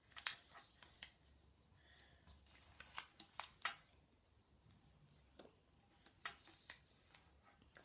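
A sheet of paper being folded and creased by hand: faint scattered crinkles and rustles as the corner is pressed down.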